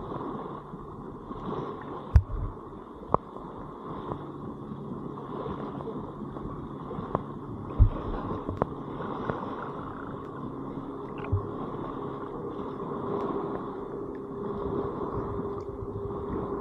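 River water sloshing and gurgling close to the microphone, with a few dull thumps, the loudest about two and eight seconds in.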